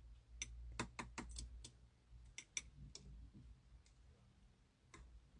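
Toy slime being pressed and squished by hand, giving a run of sharp little clicks and pops: a quick cluster about a second in, a few more around two and a half seconds, and one last pop near the end.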